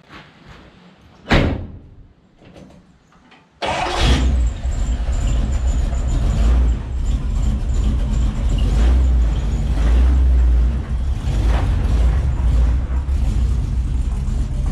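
A pickup door slams shut, then about two seconds later the truck's 429 big-block Ford V8 fires up abruptly and runs at a loud, deep idle.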